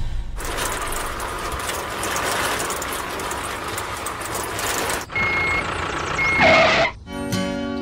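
A steady hissing noise, then two short high beeps about a second apart like a vehicle's reversing alarm, with a rising sweep just after the second; music begins near the end.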